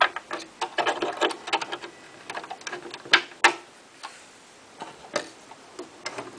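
Irregular clicks and small knocks from a Singer 7033 sewing machine being worked by hand, with a quick clatter of clicks about a second in and two sharp clicks near the middle; no motor running.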